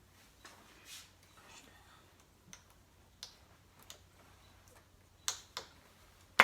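Scattered light clicks and taps of plastic engine parts being handled, with two sharper clicks about five seconds in, as the engine cover and oil filler cap are worked off.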